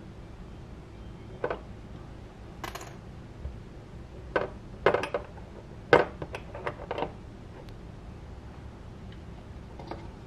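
Light irregular clicks and taps of a capsule and fingers against a small metal measuring spoon as turmeric powder is emptied into it, about a dozen taps with the sharpest near the middle and a brief rustle early on.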